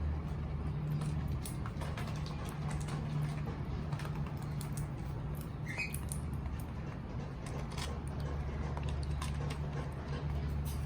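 A cockatiel's beak nibbling and cracking a raw almond: a run of small, irregular crunching clicks, with one brief high squeak about halfway through. A steady low hum sits underneath.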